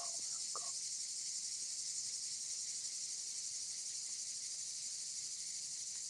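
Steady, high-pitched insect chorus, unbroken throughout.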